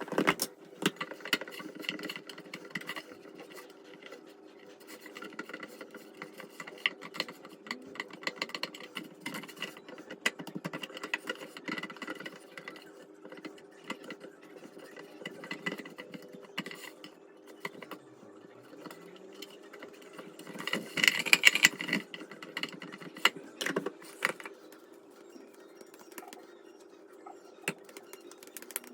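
Kitchen handling sounds: scattered clinks, taps and knocks of utensils and dishes over a steady hum from a running appliance, with a louder burst of clattering about two-thirds of the way through.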